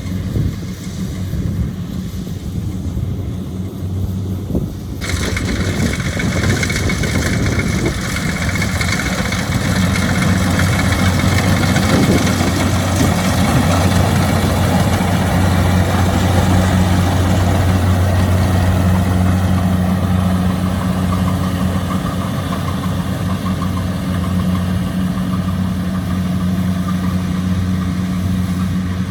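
Kubota DC-70 Plus combine harvester's diesel engine running steadily as it harvests rice. A louder rushing noise joins about five seconds in and carries on over the engine hum.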